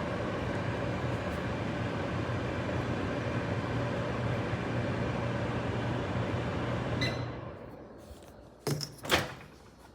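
Microwave oven running with a steady hum and fan noise, which stops about seven seconds in with a short high tone. Two sharp clacks follow near the end.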